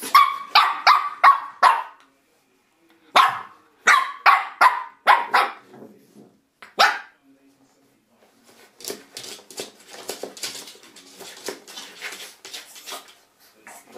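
Shih Tzu puppy barking in quick, sharp, high yaps: a run of five, a pause, about six more, then a single bark. After that come several seconds of quieter scuffling and tapping.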